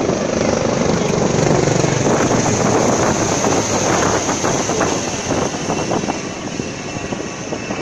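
Naval helicopter flying low overhead, its rotor beating with rapid blade thumps. Loudest in the first half, then easing off a little as it passes.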